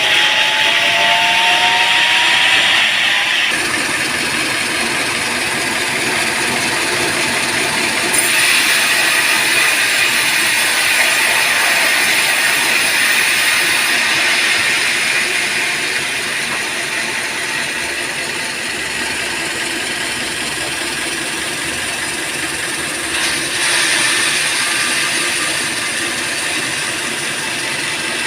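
Band sawmill running on a teak log: a steady, loud mix of machine noise and hiss. The sound shifts abruptly several times.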